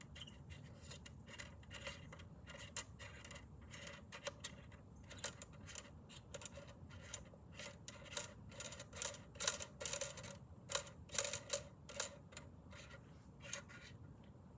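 Irregular small clicks, ticks and scrapes of hard parts being handled and fitted on an electric scooter, sparse at first, then busier and louder about eight to twelve seconds in.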